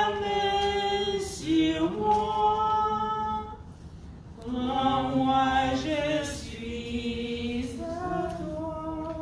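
A small congregation singing a hymn unaccompanied, in four long held phrases with short breaks between them.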